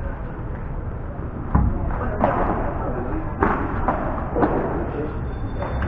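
A padel rally: the ball knocking sharply off rackets and court surfaces, four hits about a second apart.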